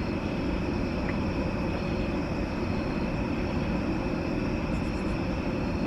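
Steady low rumble with faint, steady high-pitched hums above it, unchanging throughout.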